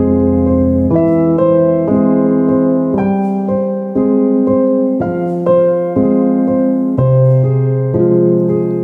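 Slow background piano music: sustained chords, with a new chord or note struck about once a second.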